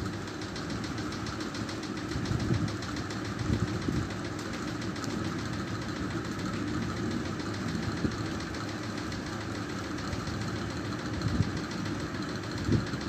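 A steady low rumbling drone with a fast, fine pulsing, heard in the night sky and taken for a frightening sound from the sky.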